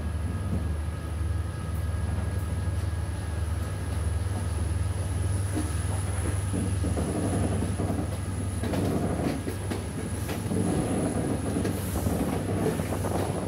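Diesel passenger train running along the track, heard from a window of the moving train: a steady low engine drone, with wheel clatter over the rail joints growing louder from about halfway.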